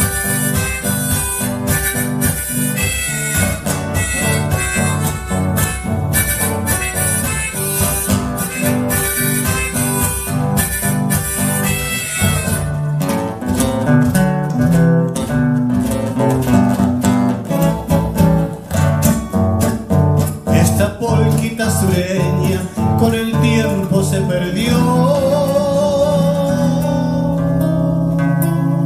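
Instrumental passage of a polka played live on two acoustic guitars with percussion: a quick, even strummed beat under picked melody notes. A bright high shimmer from the percussion stops about twelve seconds in, and a held, wavering note enters near the end.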